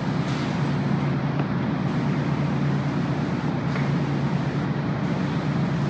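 A steady mechanical hum with a low drone that holds level throughout, with no distinct knocks or clicks.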